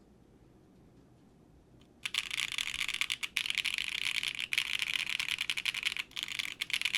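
Fast typing on a Quantum60 custom 60% mechanical keyboard with a polypropylene plate and an O-ring mount: a dense run of keystroke clacks that starts about two seconds in, after near silence.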